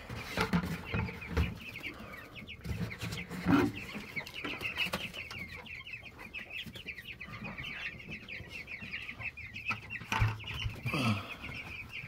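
A flock of young meat chicks and ducklings peeping together in a dense, continuous chorus of quick high chirps. A few knocks are mixed in, the loudest about three and a half seconds in.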